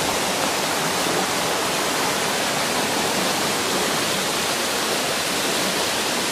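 Rushing water: a steady, unbroken rush that stays at one level throughout.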